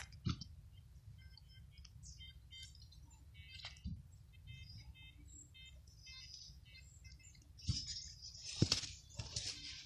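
Faint bird chirps repeating in quick short notes, with a few soft knocks and a rustle of handling noise near the end.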